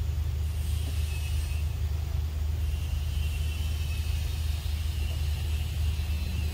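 Steady low rumble with a faint high hiss above it.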